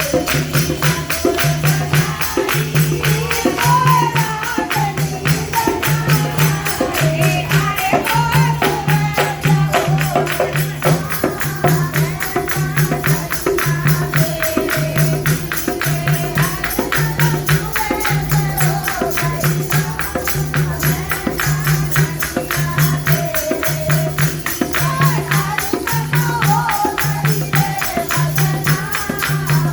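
Haryanvi folk bhajan music: a low drum beat about once a second under constant tambourine-like jingling, with a wavering sung melody over it.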